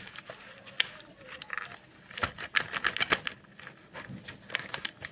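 Hands feeling and squeezing a fuzzy plush toy dog close to the microphone: irregular rustling with many sharp clicks.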